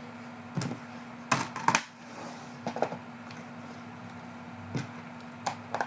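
Scattered light clicks and taps, about six in all, of small hard objects being handled, over a steady low hum.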